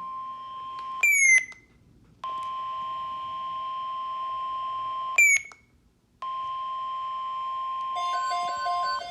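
Weather-alert warning tone, a steady high beep sounding in three stretches. The first is short and the other two last about three seconds each. Each stretch ends in a brief falling chirp and a short silence. Near the end a pattern of short repeated beeps starts.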